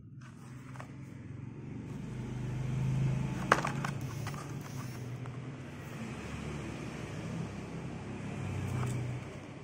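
A low engine hum swells and fades twice, like motor vehicles passing. About three and a half seconds in there is a single sharp click as the plastic blister pack of a Hot Wheels car is handled.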